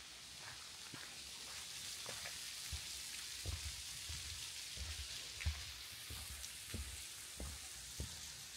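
Hiker's footsteps on a trail, soft thuds about twice a second that set in a few seconds in, over a steady hiss of running water.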